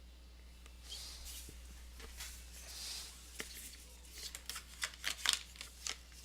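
Soft rustling of small objects being handled, then a quick run of light clicks and taps.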